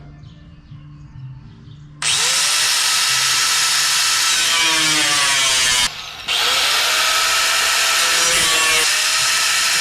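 Handheld power tool cutting sheet steel. It starts abruptly about two seconds in, stops for a moment near the middle, then resumes with a dense, high hiss and faint pitch that sweeps up and down.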